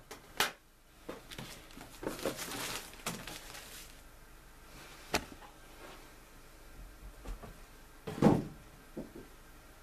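Hands handling a cardboard model-kit box and its bagged plastic parts: a clear plastic bag rustling for a second or two about two seconds in, a few light clicks, and a louder knock about eight seconds in.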